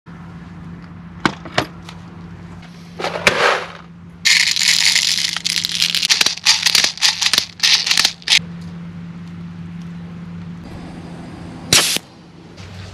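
Handling a VFC BCM MCMR gas-blowback airsoft rifle's magazine: a couple of sharp clicks, then about four seconds of fast, uneven clicking and rattling as BBs are pressed into the magazine one by one, and one short sharp burst near the end.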